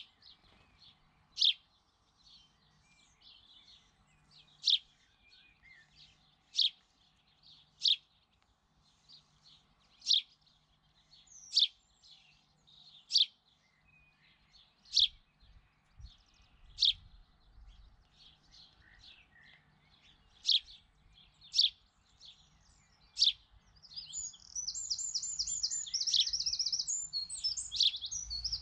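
A small bird giving loud, high single chirps at irregular intervals of one to three seconds, then a rapid run of quick repeated notes near the end.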